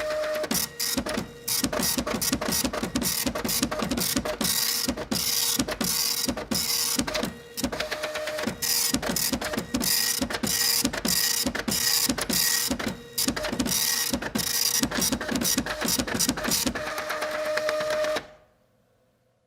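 Printer running a print job: rapid, uneven clattering strokes over a steady mechanical hum, stopping about eighteen seconds in.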